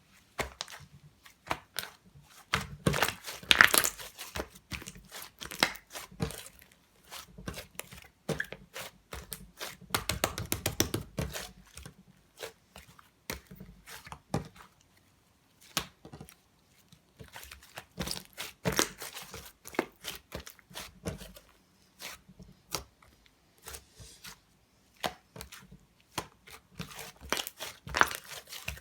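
Slime being squished and stretched by hand: a run of sticky clicks and crackling pops, with denser bursts of squishing every several seconds.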